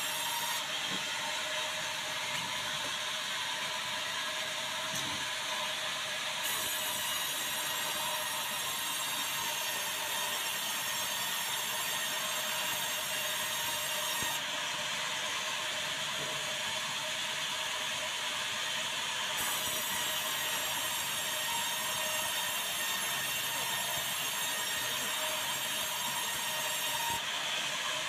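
Large band sawmill running steadily while it saws a white meranti timber into boards, a constant hissing machine noise with a steady whine.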